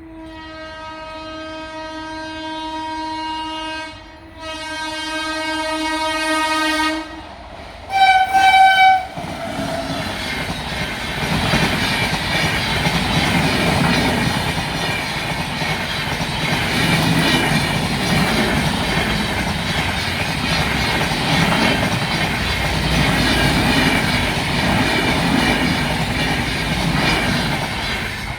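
WAP7 electric locomotive sounding its horn: two long blasts, then a short, louder, higher-pitched blast, after which the train runs past with the steady noise of wheels on rails.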